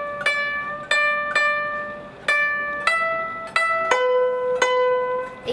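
Guzheng plucked in a slow run of single notes, about eight in all, each ringing out and fading before the next; the pitch steps down a little about four seconds in.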